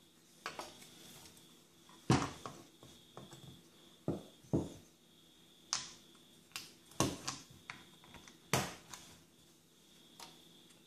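Small metal tools and saw-handle screws clicking and knocking as a handsaw's wooden handle is unfastened and the parts are set down on a cloth-covered table: about eight sharp taps and clinks, spaced irregularly a second or so apart.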